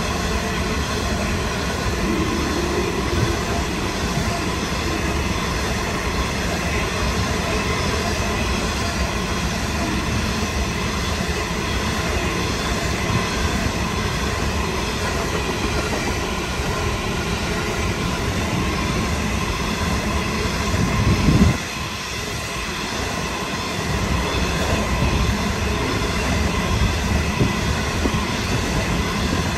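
Long freight train of coal hopper wagons rolling steadily past, a continuous rumble of wheels on rail with a faint steady whine. About two-thirds of the way in there is a brief loud surge, then the sound dips for a couple of seconds before the rumble returns.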